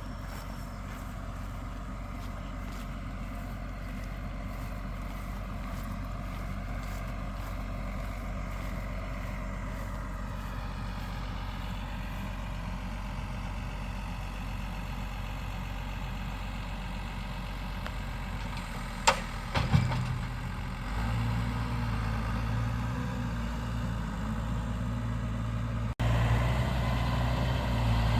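Vehicle engine idling with a steady low hum. A couple of sharp clicks come about two-thirds of the way through, after which the engine note is louder.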